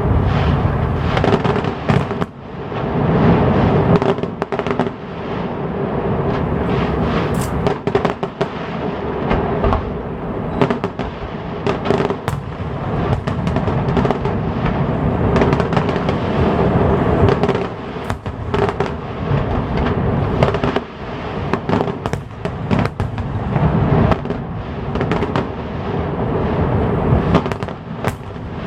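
Fireworks display: a continuous barrage of bangs and crackling bursts, with a sharp report every second or so.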